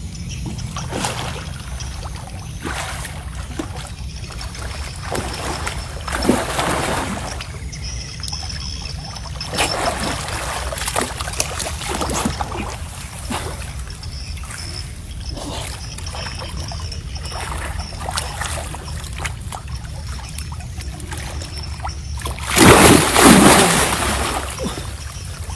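Irregular splashing and sloshing of muddy pond water as a man wades and swims while fighting a large hooked fish, with the loudest burst of splashing near the end as the water churns around him at the bank.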